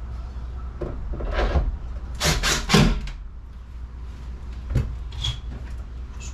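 Knocks and clatters from a tool being handled and set down among wooden surfaces, the loudest a quick cluster of three about two seconds in, with a few lighter knocks later. A steady low hum runs underneath.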